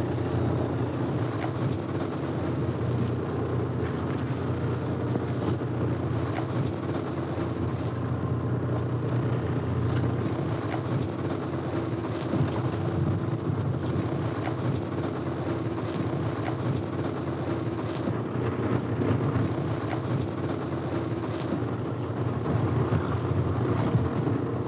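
Boat engine running steadily with a low, even hum, under a hiss of wind and water.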